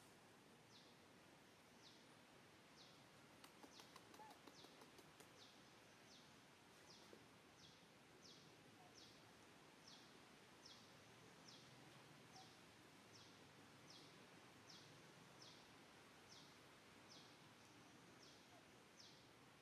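Faint forest ambience with a bird repeating one short high chirp that drops in pitch, steadily about one and a half times a second. A brief run of faint ticks about four seconds in.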